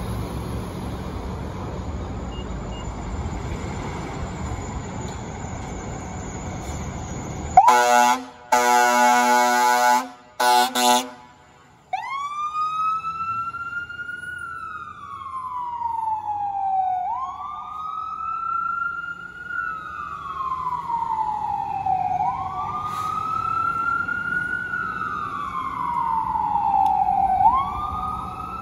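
Fire engine responding on an emergency call. A few seconds of traffic noise, then one long horn blast and two short ones. After that the siren wails, rising quickly and falling slowly about every five seconds.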